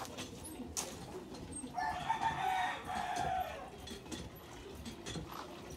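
A rooster crowing once, about two seconds in, lasting about a second and a half.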